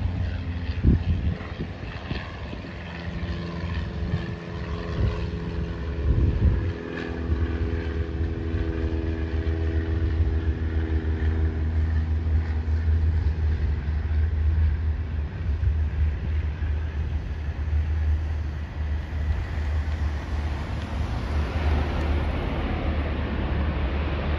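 Jet airliner engines across an airfield: a steady low rumble, with a few steady engine tones that fade out about halfway through and a rushing engine noise that swells near the end.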